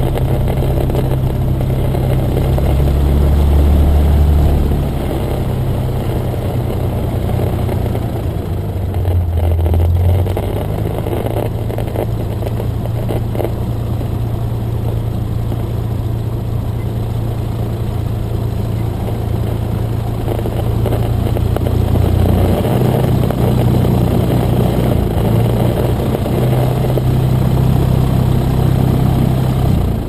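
Cessna 175's piston engine and propeller running at low taxi power, heard from inside the cabin as a steady drone. The pitch shifts and the sound swells slightly a few times, around four and ten seconds in and again past twenty seconds, as the throttle is moved.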